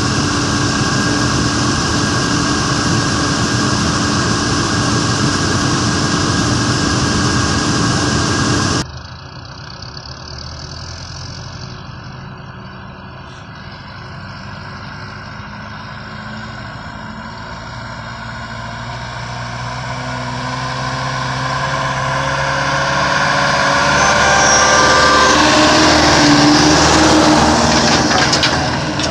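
Combine harvester running loud and steady while its unloading auger pours grain into a trailer; the sound cuts off abruptly about a third of the way in. After that, a diesel truck engine pulling a loaded tipping trailer grows steadily louder as the truck drives close past near the end.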